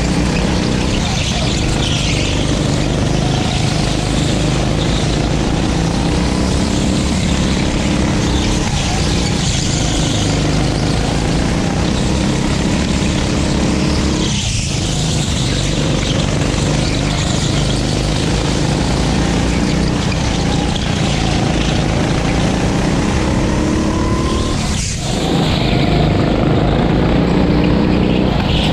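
A 9 hp go-kart engine at race pace, heard on board. Its pitch rises and falls as the kart accelerates and backs off, with two short drops where the throttle is lifted, about halfway through and near the end.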